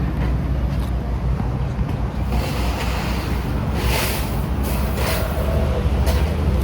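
Steady low rumble of nearby road vehicles mixed with wind buffeting the microphone, with a few short rustles about four, five and six seconds in.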